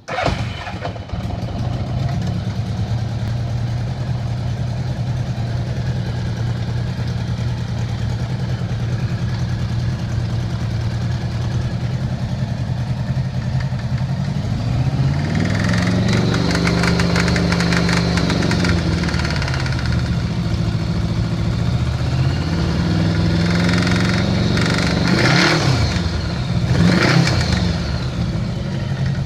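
1982 Honda GL1100 Gold Wing's flat-four engine idling steadily, then revved up and back down once about fifteen seconds in and blipped a few more times near the end. It carries the knocking noise the owner is asking about, with no cause known.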